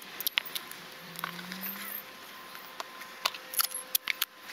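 Black duct tape being torn from the roll and pressed onto carpet-tile pieces: an irregular run of sharp crackles and clicks.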